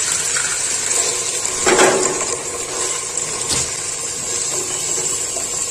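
Raw minced mutton sizzling in hot oil in an aluminium pressure cooker, with a wooden spatula scraping and stirring against the pot; the loudest scrape comes about two seconds in.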